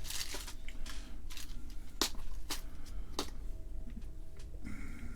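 Scattered light clicks and handling noises on a workbench, about half a dozen over a few seconds, over a steady low hum.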